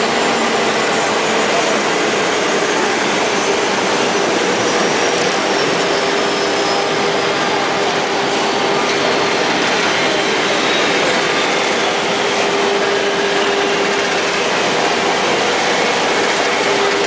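A high-speed gravure printing machine running: a loud, steady whir with a constant hum, and a faint high whine that slowly falls in pitch.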